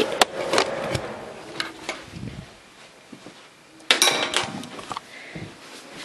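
Clicks and knocks from handling the unplugged vacuum cleaner and its cord, with no motor running. A louder clatter comes about four seconds in.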